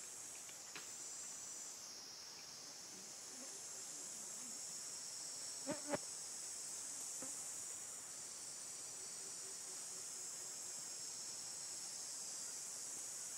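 Steady high-pitched insect chorus, with two brief sharp clicks about six seconds in.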